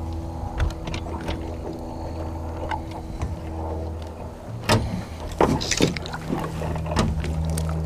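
A boat motor running with a steady low hum, and several sharp knocks in the second half.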